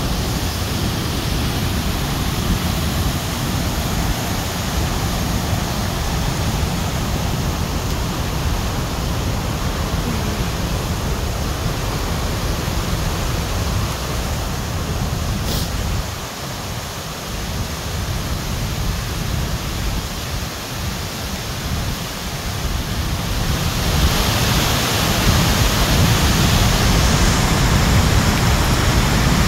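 Mountain torrent rushing over rocks: a steady wash of white-water noise that dips a little midway and grows louder for the last few seconds.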